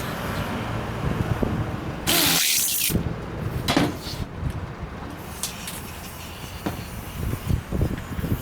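A loud hiss of pressurised spray, lasting under a second, about two seconds in, among irregular low knocks and clatter of work on a small machine.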